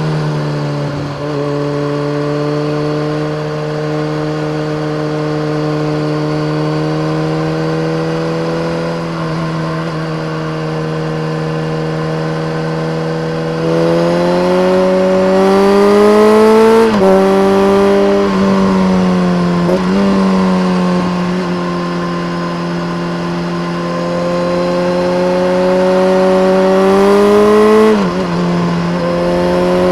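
BMW K1300R inline-four engine through a full Akrapovic race exhaust with a dB killer, riding on the road. It holds a steady note for the first half, then pulls hard, its pitch climbing and dropping sharply at gear changes about three times.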